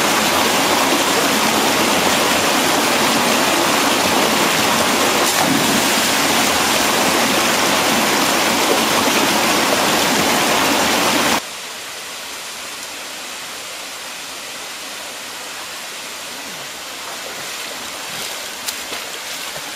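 Steady loud rushing of water in a canyon. About eleven seconds in it cuts abruptly to a quieter flowing creek, with splashing from wading steps near the end.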